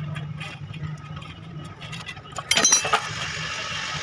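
Metal engine parts and tools clinking during engine work, with a loud metallic clatter and brief ringing about two and a half seconds in, over a steady low hum.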